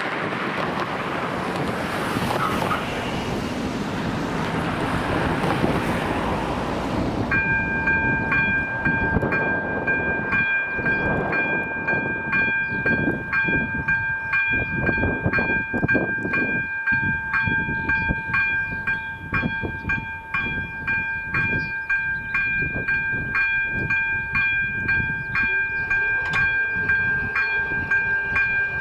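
Wind on the microphone and passing cars, then about seven seconds in the level crossing's electronic warning bell starts up: a bright ringing tone struck in a quick, even beat that keeps going as the warning lights flash and the barriers come down.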